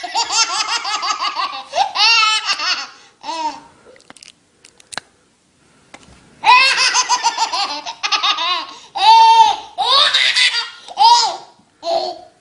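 Baby laughing hard in bouts of quick, high-pitched pulses: a long run at the start, a short burst a few seconds in, then a pause and several more bouts from about six seconds in.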